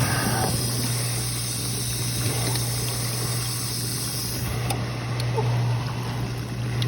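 Dishwasher circulation pump motor running with a steady hum while water rushes through it; water is leaking out of the new pump motor housing, which has a hairline crack.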